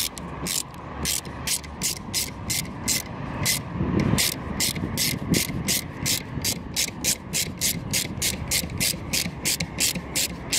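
Hand ratchet with a T30 Torx bit clicking as it is swung back and forth on a bolt, a steady run of about four clicks a second.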